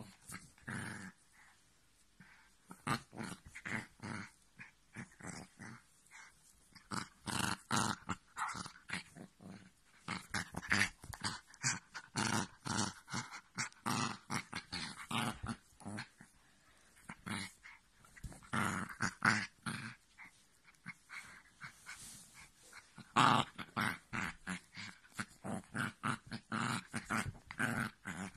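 A small dog growling in short, repeated bursts with brief pauses between them, while play-fighting with a person's leg.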